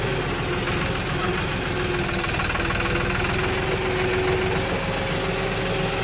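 Compact farm tractor's diesel engine running steadily as the tractor drives along, a fast even chugging with a steady whine over it.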